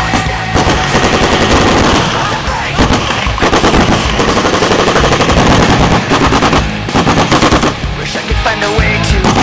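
Sustained automatic gunfire: machine-gun and rifle fire in rapid, overlapping runs of shots.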